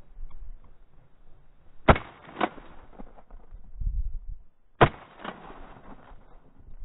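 Two 12-gauge shotgun shots about three seconds apart, each followed by a fainter crack about half a second later.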